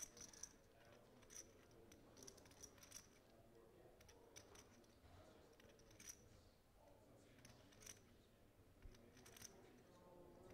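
Near silence with faint, irregular clicks of poker chips being handled at the table.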